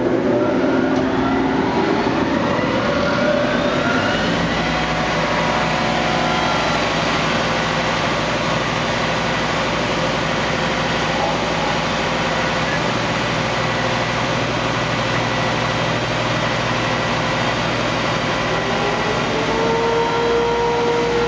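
Timesavers 3300 series 37-inch wide belt sander, with its 30 hp main motor, starting up. Its pitch rises over the first few seconds as it spins up, then it runs steadily with a loud hum and hiss. About 19 s in, a new steady tone rises in.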